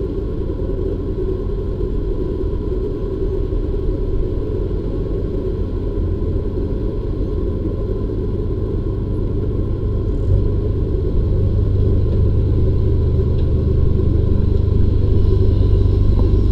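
Narrowboat's diesel engine running steadily at cruising speed, a low rumble that grows louder about two-thirds of the way through as the boat passes under a brick bridge arch.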